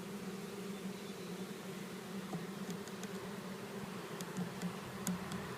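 A mass of honey bees buzzing steadily in a low, even hum, with a few faint clicks about four to five seconds in.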